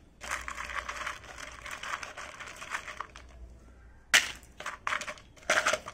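Small gravel stones clicking and scraping against each other as a hand shifts them around in the bottom of a plastic plant pot, with three louder clatters in the second half.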